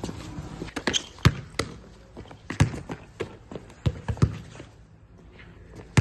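Soccer ball being kicked and bouncing on a concrete court: a string of sharp, irregular thumps, about eight in six seconds, the loudest a little over a second in and again near the middle.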